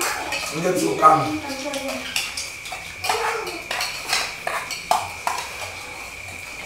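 Spoons and cutlery clinking against plates and dishes while people eat, in scattered short clinks, with a steady high whine underneath.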